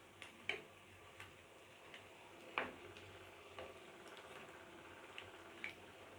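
Spring rolls frying in oil over low heat: faint steady frying with scattered sharp pops and crackles from the oil, the loudest about two and a half seconds in.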